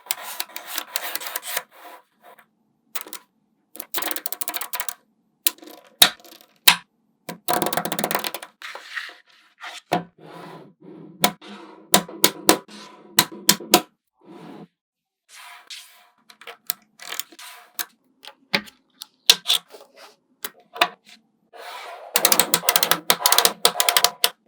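Small magnetic balls clicking and rattling as they snap together and roll against one another. Sharp single clicks alternate with dense bursts of rapid clicking, the longest burst near the end.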